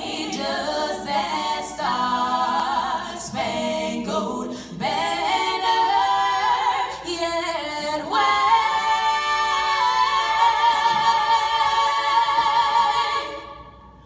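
A woman singing solo a cappella into a microphone. About eight seconds in she holds one long note with vibrato, which fades out near the end.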